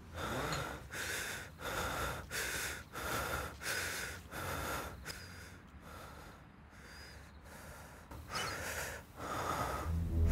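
A man breathing hard and fast: heavy gasping breaths, about three every two seconds. They ease off for a few seconds past the middle, then come two more heavy breaths near the end.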